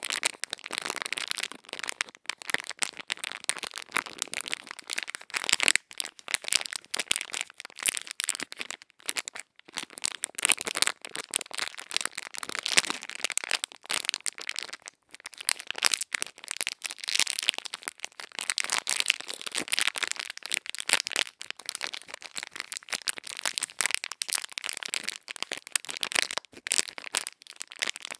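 Close-miked ASMR ear-cleaning sounds: tools scraping and rustling right at the microphone's ear, a dense, crisp crackle of tiny clicks with brief pauses.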